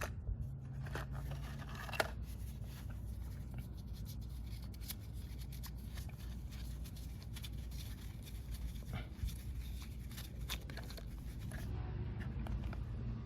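Occasional light clicks and taps of hand work on the engine while spark plugs are being changed, over a steady low hum.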